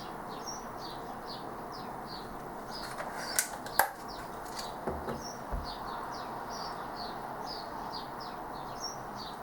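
A bird chirping over and over, short high falling notes about two to three a second, over a steady background hiss. Two sharp clicks sound a little over three seconds in.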